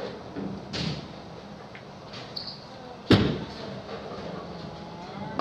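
A bowling ball, a Hammer Vibe, drops onto the lane with one sharp thud about three seconds in and rolls on with a low rumble, amid the scattered knocks and clatter of a bowling alley.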